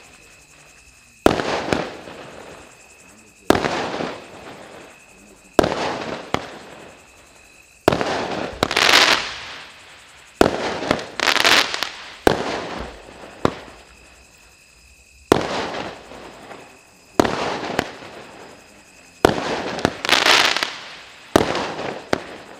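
Low-noise firework cake firing a shot about every two seconds, about eleven in all, each a sharp pop followed by a fizzing hiss that fades before the next.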